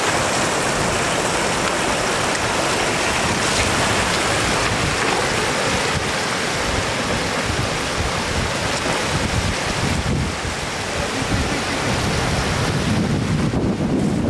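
Steady rush of shallow floodwater pouring across a road and spilling over its edge into a field, with a heavier low rumble near the end.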